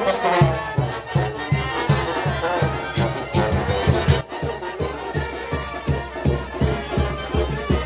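Live brass band playing traditional music, with a steady bass drum beat under tuba and brass.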